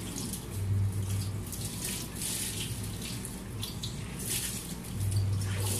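Crisp toasted bread being handled: a series of short, irregular crackling rasps over a low hum.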